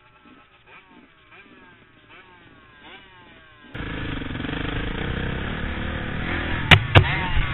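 Faint dirt bike engine accelerating, its pitch climbing and dropping back again and again as it shifts up through the gears. About four seconds in, a loud, close dirt bike engine cuts in abruptly, with two sharp knocks near the end.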